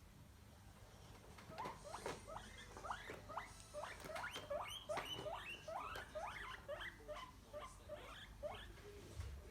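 Guinea pig wheeking: a run of short squeals that each rise sharply in pitch, about two a second, starting a second or two in and stopping near the end. It is the loud food-begging call a guinea pig gives when it expects a treat.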